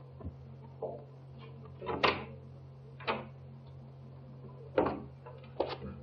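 Soft, irregular knocks and clicks, roughly one a second and loudest about two seconds in: footsteps on a wooden floor and the handling of a glass-paned French door as it is opened. A steady low hum from the old optical film soundtrack runs underneath.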